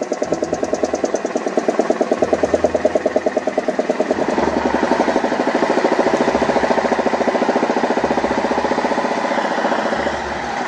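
Diesel engine of a heavy multi-axle off-road crane truck running hard as it crawls up a muddy rutted track, with a rapid, even pulsing beat that grows a little louder about four seconds in.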